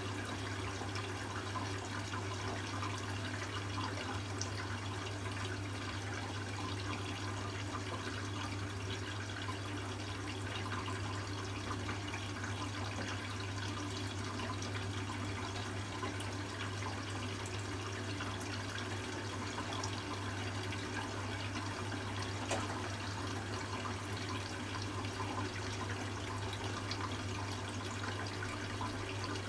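Hoover Classica 1100 washing machine taking in water for its first rinse: a steady rush of water running into the machine over a constant low hum.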